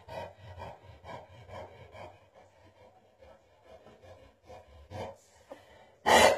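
Landseer dog panting in short, rhythmic breaths, with longer gaps in the middle. A brief, much louder noise comes near the end.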